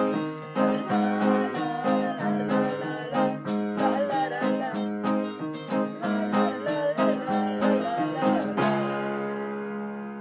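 Upright piano and electric guitar playing a rhythmic chord accompaniment, with a male voice singing the melody. About two-thirds of the way in, the song ends on one final chord that is held and rings out, slowly fading.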